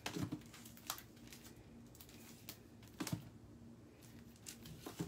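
Packaged craft supplies being handled and set down while someone searches through them. There are a few light clicks and knocks, about a second or two apart, with faint rustling between them.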